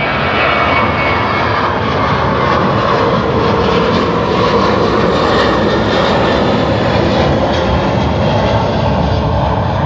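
Airplane flying over, its engine noise a loud, steady rush that covers everything else.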